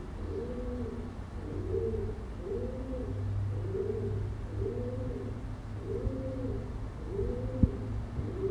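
A pigeon cooing in a steady series of low, moaning calls, each rising and then falling, about one a second.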